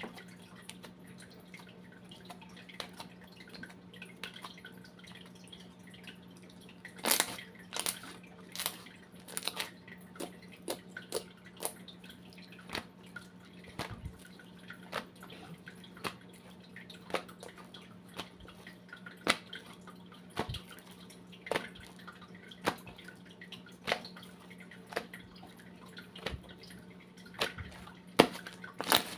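Irregular wet clicks and drips as mud is worked and washed by hand in water, with a run of louder ones about seven to ten seconds in, over a faint steady low hum.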